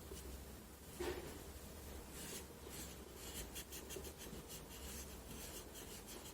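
Faint rubbing and scratching strokes: excess oil being wiped off the freshly oiled hub of a small 12 V cooling fan, with a light knock about a second in.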